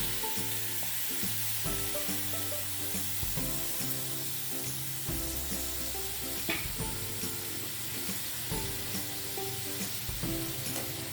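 Onion paste sizzling in hot oil in a kadai while it is stirred, with one sharp knock of the spatula about six and a half seconds in; the paste is frying down until its water cooks off. Soft background music plays underneath.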